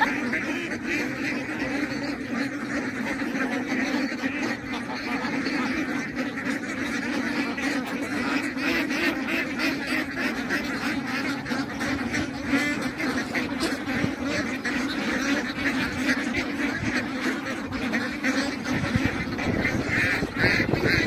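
A large flock of domestic ducks quacking continuously, many calls overlapping into a steady din.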